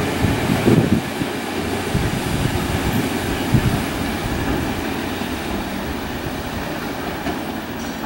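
Tobu 10050-series electric multiple-unit train running away from the listener through a station. Its wheels clack over rail joints about a second in, then settle into a steady rumble that slowly fades as the train recedes.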